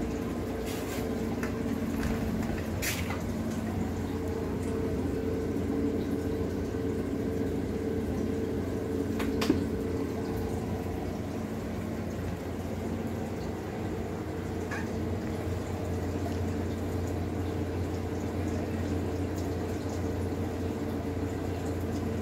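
Aquarium equipment running: a steady hum from the filter or air pump, with water trickling and bubbling. There are a few faint clicks, and a sharper one about nine and a half seconds in.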